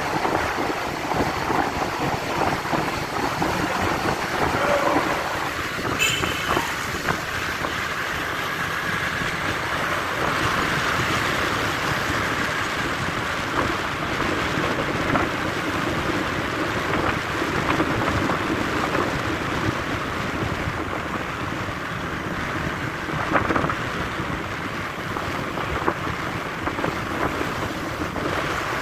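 Wind rushing over the microphone of a scooter under way, mixed with its engine and road noise, with a brief click about six seconds in.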